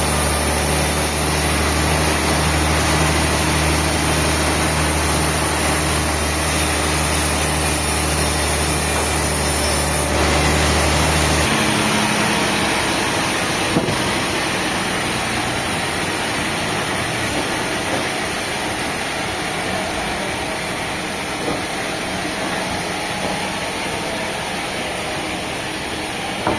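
Sawmill machinery running with a steady loud din and a low motor hum. The hum cuts out about halfway through, the din carries on, and there is a single sharp click shortly after.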